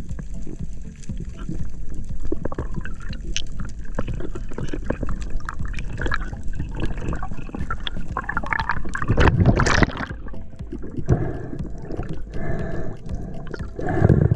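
Water sloshing and gurgling around a spearfisher's camera, with scattered sharp clicks and a louder rush of water about nine to ten seconds in, and another near the end.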